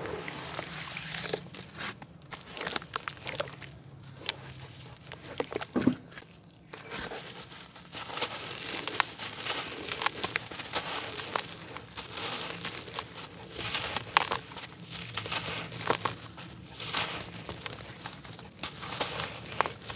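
Dry, grainy red-dirt block crumbled by hand over a basin of muddy water: a dense run of crunching and crackling as grit breaks off and drops into the water, with a few sharper cracks.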